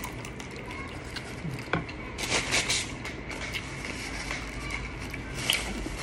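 Close-miked eating at a table: fried chicken being bitten and chewed, with small clicks from handling food and utensils. A brief burst of paper rustling from a tissue comes a little over two seconds in, and a sharp tick near the end.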